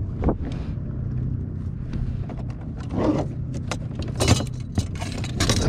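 A just-caught fluke being handled and measured on a kayak: scattered knocks, rattles and scrapes, the loudest just after four seconds, over a steady low hum.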